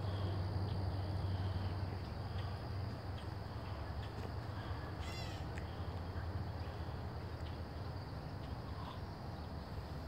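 Woodland background of steady hiss and low hum with faint insects, and one short, harsh animal call about five seconds in.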